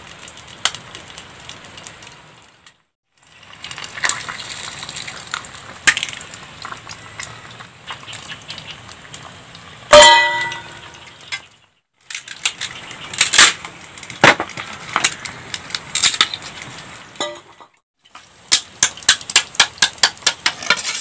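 Beaten eggs frying in oil in a small steel pot over a wood fire, a steady sizzle with many sharp clicks and ticks. About ten seconds in, one loud metallic clink rings out, and near the end comes a quick run of ticks. The sound is broken by a few short silent gaps.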